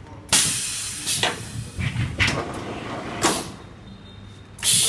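Automatic glass-cutting machine letting out compressed air: a sudden loud hiss about a third of a second in that tapers off, with short sharp air bursts about once a second, and another loud hiss starting near the end.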